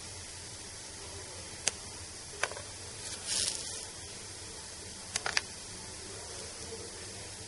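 Sharp clicks of plastic tweezers gripping and setting down a small magnet in a foam dish of liquid nitrogen: one at a time, then three quick clicks about two thirds of the way in, with a brief hiss near the middle over a steady faint hiss.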